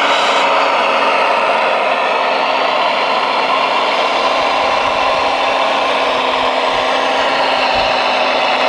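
Radio-controlled Liebherr R970 model hydraulic excavator running: a steady whine from its electric motors and hydraulic pump as it tracks and slews, its pitch shifting slightly with the load.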